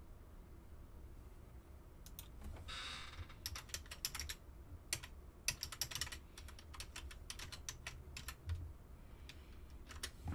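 Typing on a computer keyboard: keys clicking in quick, irregular runs, starting about two seconds in, over a low steady hum.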